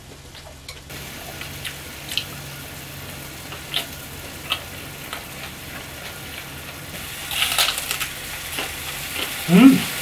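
Hanwoo beef striploin sizzling on a griddle pan, the sizzle setting in about a second in, with scattered pops and crackles. A short voice sound comes near the end.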